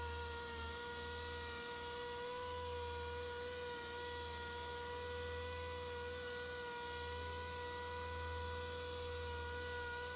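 Small air-powered polisher running steadily against the paint: a constant whir with an even, high-pitched hum and a low hum beneath, unchanging throughout.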